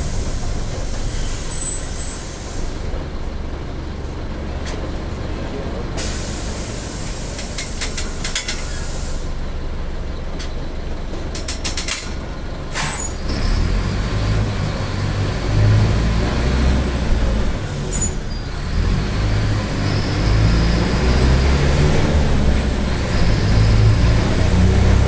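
Mercedes-Benz OF-1722M city bus at a stop: hissing air-brake and pneumatic releases with a run of clicks, then a sharp air release about halfway through. After that the diesel engine pulls the bus away with a low rumble that grows louder, along with the growl from the differential.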